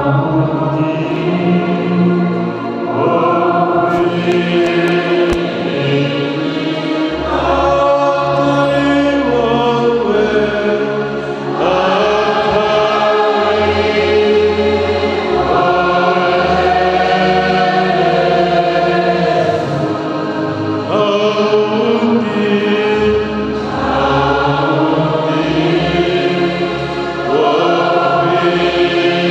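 A choir singing a hymn in several voices, in long held phrases, with low bass notes underneath.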